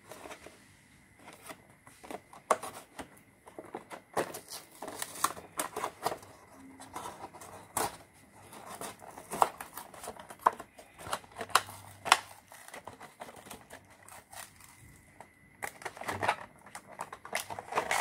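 Hot Wheels Monster Trucks plastic blister pack and card backing being handled and torn open by hand: irregular crinkling and crackling of stiff plastic with sharp snaps, busiest in the middle and again near the end.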